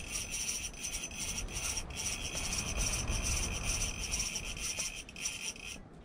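Fishing reel drag buzzing in a fast rasping click as a big lake trout pulls line off, with a short break about two seconds in, then cutting off suddenly just before the end.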